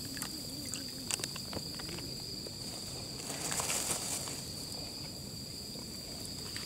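Thick omelette sizzling faintly on a mesh grill over charcoal, with a few light clicks, under a steady high insect trill.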